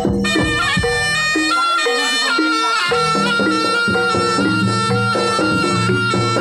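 Live Javanese jaranan (kuda lumping) ensemble music. A shrill reed trumpet (slompret) holds long notes over quick struck gong-chime notes and drums. The low drum part drops out briefly near the middle and then comes back.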